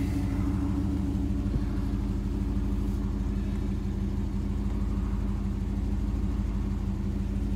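Bristol Beaufighter Turbo's Chrysler V8 idling steadily, heard from inside the cabin.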